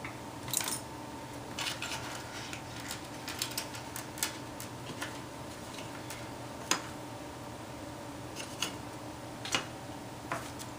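Light plastic clicks and taps, scattered and irregular, as the parts of a toner cartridge are handled and set down, over a steady background hum.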